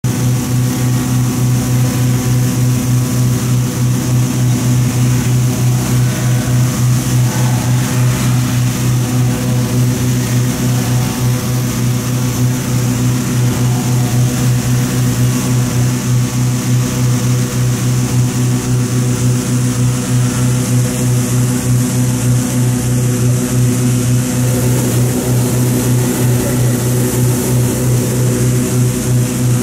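Hot-air balloon inflation: petrol-engine inflator fans run with a steady low hum under the hiss of propane burners firing into the balloon envelopes.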